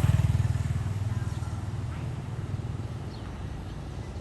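A motorcycle engine passing close by and fading away, its low, fast pulsing dying down into the steady hum of street traffic.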